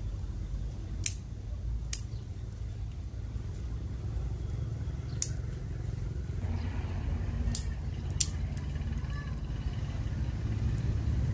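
Dry kindling twigs cracking in a cement charcoal stove: five sharp snaps, spaced a second or more apart, as the sticks are handled and start to burn. A steady low rumble runs underneath.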